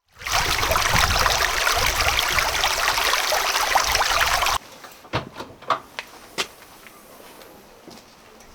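A burning wood fire crackling. For about four and a half seconds there is a loud, dense crackling hiss, which cuts off abruptly. After that the crackle is much quieter, with a few sharp pops.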